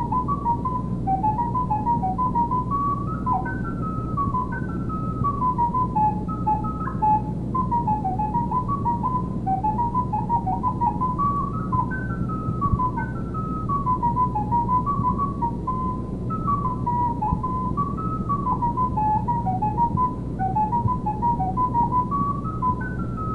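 Solo recorder playing a quick running melody, one note at a time, over a low steady hum.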